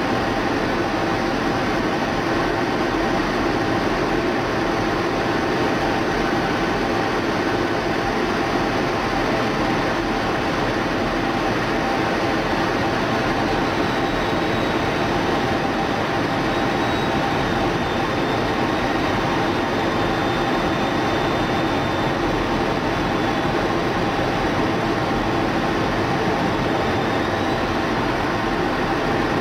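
Steady, unchanging rush and hum heard inside an F-16 Fighting Falcon's cockpit in flight, with a faint high whine through the second half.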